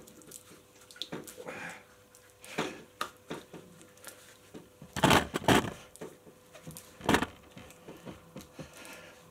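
Grip Puppies foam grip cover, wetted inside with soapy water, being twisted and wiggled onto a motorcycle's handlebar grip: irregular rubbing and squishing of wet foam on rubber, with a few louder bursts about five and seven seconds in, over a faint steady hum.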